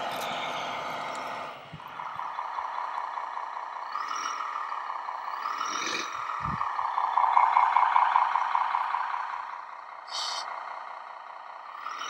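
Radio-controlled model bulldozer (a Bruder CAT D11 toy converted to RC) running: a steady mechanical whine from its drive that rises and falls with its speed, loudest a little past the middle and fading near the end. A short low thump comes about six and a half seconds in.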